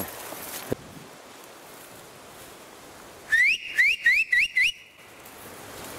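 A man whistling five short, rising notes in quick succession, a hunter's whistle call to bring a hound back in. A single sharp click comes about a second before.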